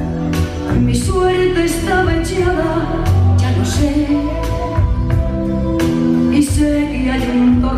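A woman singing a Spanish-language ballad over band accompaniment, with a steady drum beat.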